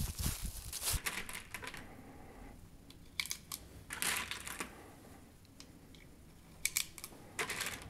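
9mm cartridges being taken from a cardboard box and pressed into a Taurus PT92 pistol magazine: a few sharp clicks and short rattles of brass. It opens with a brief rustle of dry leaves.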